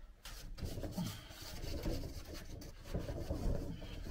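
A cloth rubbing wax into the wooden frame of an old step ladder chair in uneven back-and-forth strokes. It starts about half a second in.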